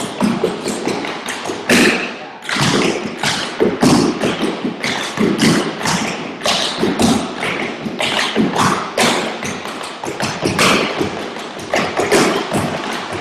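Tap shoes striking portable wooden tap boards as several dancers tap a routine together: a rapid, unbroken stream of sharp metal taps mixed with heavier thuds.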